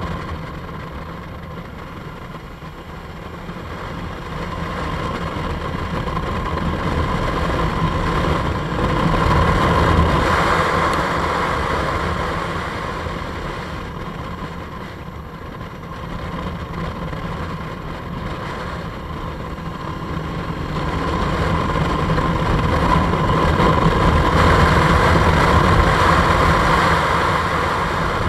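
Motorcycle underway, its engine running under a steady rush of wind. The sound swells louder twice, about a third of the way in and again toward the end.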